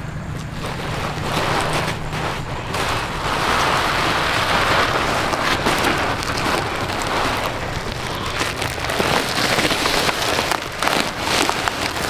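Rustling and crinkling of a woven plastic sack being handled, wrapped around a bundle of scallions and pushed into a bamboo basket. Sharp crackles come in thick near the end.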